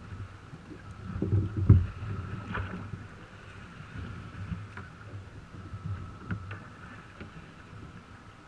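Water slapping against a drifting jet ski's hull, with wind on the microphone and a few knocks and thumps, the loudest about two seconds in.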